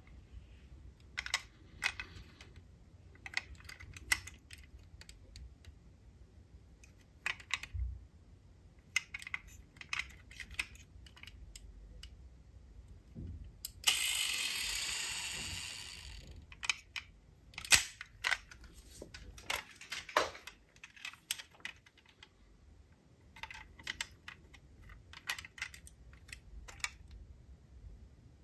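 Die-cast toy cars being handled: irregular small clicks and knocks of hard metal and plastic. About halfway through, a hissing rush lasts about two seconds and fades.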